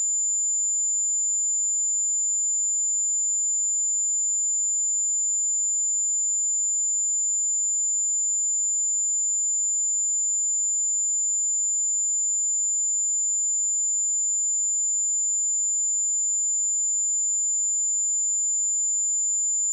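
A steady, unbroken 7097 Hz sine-wave test tone: a single high-pitched pure tone at constant level.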